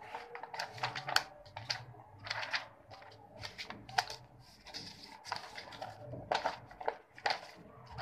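Pages of a paperback book being riffled and the book handled in the hands: irregular paper rustles with sharp clicks and flaps.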